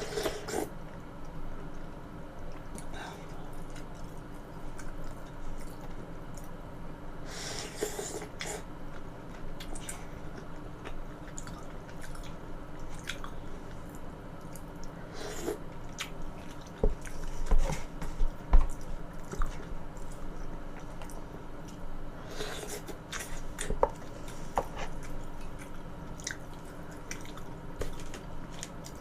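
Close-miked chewing and soft wet mouth sounds of a person eating, with scattered small clicks. A few brief low thumps come a little past halfway and are the loudest sounds.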